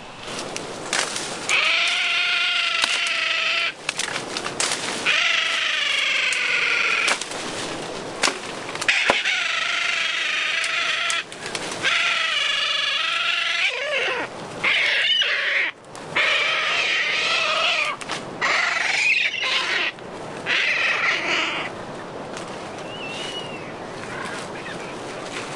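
Seabirds giving loud, harsh, wavering cries again and again, each call lasting a second or more, with abrupt breaks between them.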